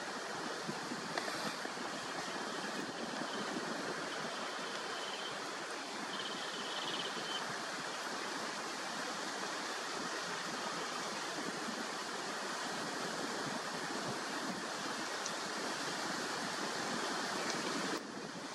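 Steady rushing hiss of river water flowing over a shallow riverbed.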